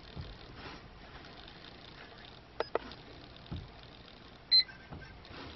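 A quiet car interior with a couple of light clicks and a soft knock as controls are handled, then one short, high electronic beep from the car or tuner electronics about four and a half seconds in.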